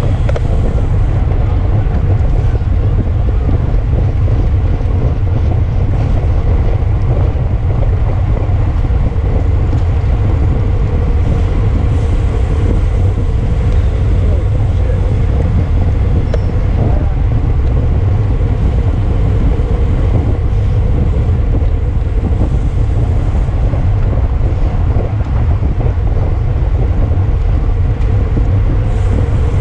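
Wind buffeting the camera's microphone: a loud, steady low rumble with no break, as on a camera carried at speed in a bicycle race.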